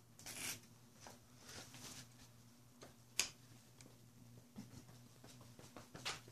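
Quiet handling noises from gloved hands working at a dirt bike's rear brake caliper, bleeder and brake hose: a short rustle at the start, a sharp click a little past three seconds in, and another rustle and click near the end, over a faint steady hum.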